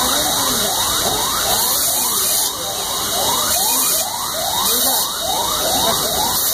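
Steady, loud machine hiss with a fainter rising squeal that repeats about twice a second.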